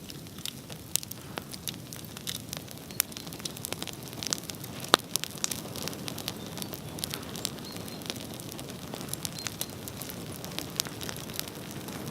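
Bonfire crackling: irregular sharp pops and snaps over a steady low rush of burning, with one louder pop about five seconds in.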